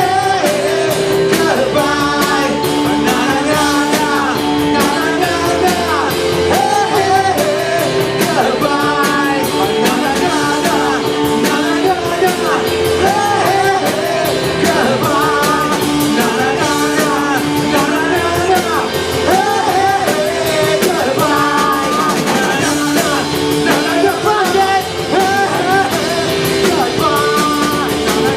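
Rock band playing live, with singing over guitar and drums.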